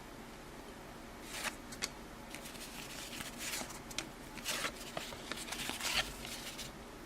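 Cardboard hockey trading cards being flipped through one by one: faint, short sliding and flicking rustles at irregular moments.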